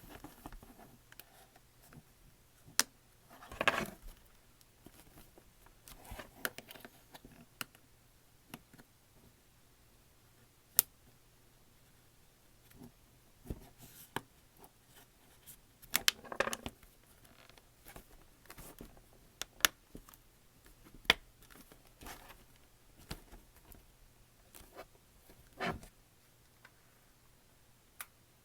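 Scattered sharp clicks and snaps, with a few short scraping sounds, from an LG tablet's plastic back cover being pried off.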